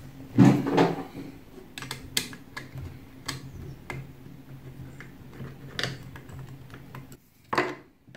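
Light clicks and taps of a small screwdriver working the screws under the side fan of an Anet A3 3D printer's extruder carriage, with a louder handling noise about half a second in. A steady low hum runs under it and stops shortly before the end.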